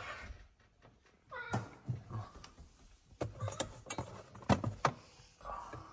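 Serval meowing a few short calls while hungry for food, amid several sharp clicks and knocks as a cardboard box is pulled out of a steel bowl in a fridge.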